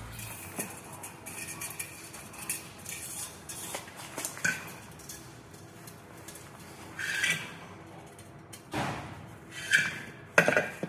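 Metal hand tools and parts clinking and clanking in irregular knocks, with the loudest few near the end.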